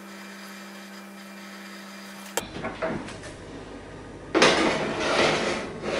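A steady low hum, then from about two and a half seconds in a few knocks and clatter at the oven, and about four and a half seconds in a loud scrape lasting around a second as a metal baking tray slides onto the oven rack.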